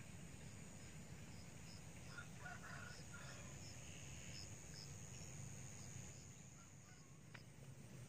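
Faint outdoor ambience: a small bird repeats short high chirps a few times a second, and a brief bird call sounds about two seconds in, over a steady low rumble and hiss.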